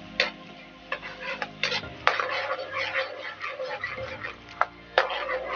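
A spoon stirring annatto through hot chicken fat in a frying pan, scraping and clinking now and then against the pan, over a light frying sizzle.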